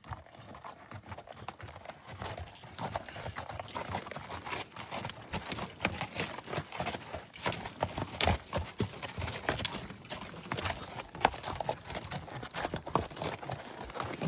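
Irregular clattering steps: many sharp knocks in uneven succession, continuing without a break.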